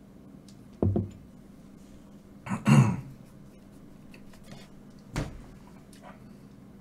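Three short, separate knocks and thumps, like things being handled and set down on a table: a dull thump about a second in, the loudest a little later around two and a half seconds in, and a sharp click just past five seconds.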